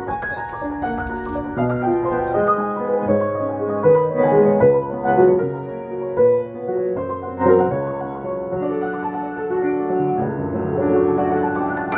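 Piano music: a steady flow of single notes and chords.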